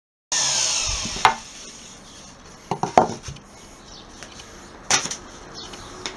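Plunge router's motor winding down with a falling whine that fades over about a second and a half, then a few sharp knocks about a second, three seconds and five seconds in as the router is set down and hands handle the freshly cut MDF disc.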